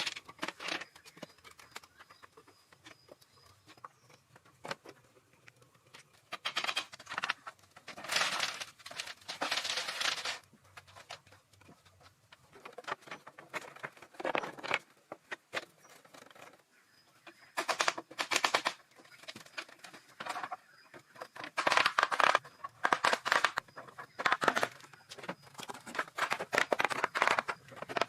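Irregular bursts of scraping and rustling with scattered small knocks, from hand building work with rough natural materials.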